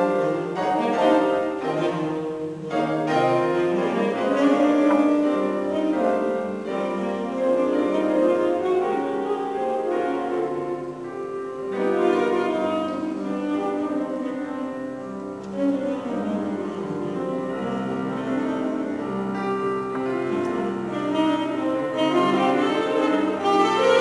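Chamber music played on piano and bowed strings such as cello and violin, with many notes sounding together and moving continuously.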